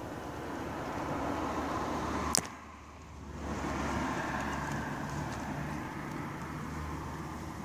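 Steady road traffic noise. A single sharp click comes a little over two seconds in, and the noise drops away for about a second before it returns.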